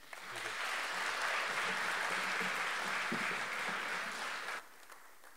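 Audience applauding, starting at once and stopping about four and a half seconds in.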